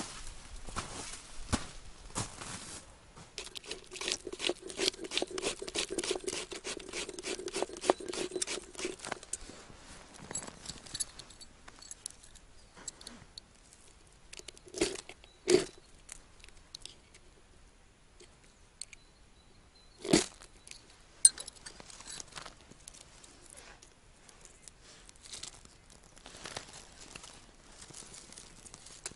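Dry twigs and bark crackling and rustling as they are handled, broken and laid for a fire. Dense crackling through the first ten seconds, then a few single sharp snaps about fifteen and twenty seconds in.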